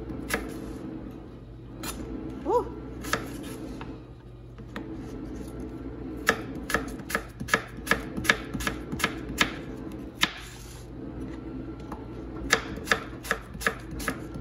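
Chef's knife slicing apples on a plastic cutting board: sharp, irregular knocks of the blade hitting the board, in quick runs of two or three a second with short pauses between, over a steady low hum.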